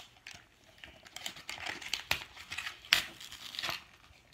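Small plastic clicks and rustling as the plastic R2-D2 alarm clock is handled, with sharper clicks about two and three seconds in.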